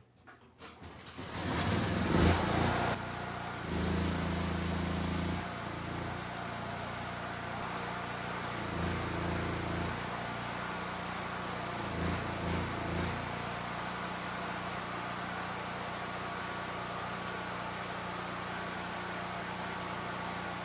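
Gasoline portable generator pull-started, catching about two seconds in and then running steadily. Its note swells briefly three times, around 4, 9 and 12 seconds in, as the AC stick welder it powers takes load.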